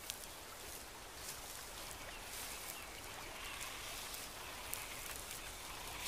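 Faint reedbed ambience: a steady low hiss of outdoor background with faint bird calls now and then.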